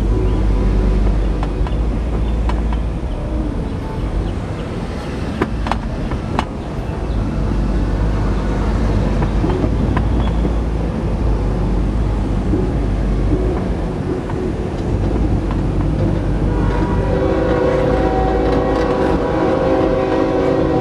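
Diesel freight locomotive approaching along the track: a steady low rumble carried through the rails, with a few sharp ticks. Near the end, about four seconds before it closes, the locomotive's multi-note air horn sounds and holds.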